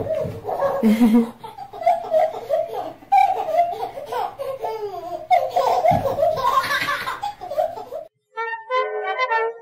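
A baby laughing in repeated fits and giggles. About eight seconds in it cuts suddenly to music.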